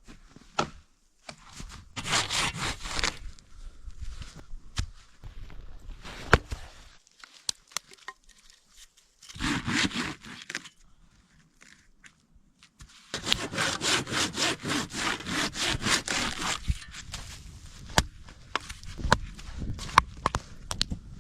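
Wood being cut with a hand saw in three bursts of quick back-and-forth strokes, the longest about three seconds, with scattered clicks and knocks in the pauses between bursts.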